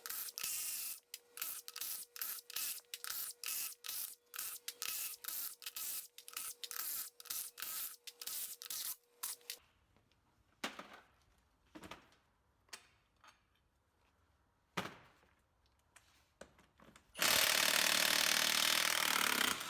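A power tool spinning off the nuts that hold together an aluminium Hutchinson military split rim, in many short bursts at about three a second. Then a few scattered knocks, and a loud continuous run near the end.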